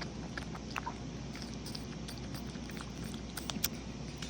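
Baby monkey sucking greedily at a milk bottle: faint scattered clicks and smacks, with a quick run of sharper clicks about three and a half seconds in.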